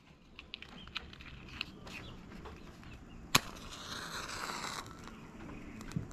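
A safety match struck on a matchbox: small clicks of the box being handled, then one sharp strike about three seconds in, followed by the hiss of the match head flaring for a little over a second.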